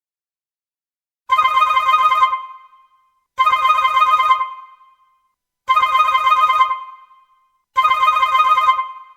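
Smartphone ringtone: a rapid trilling ring, played four times about two seconds apart, each ring fading away.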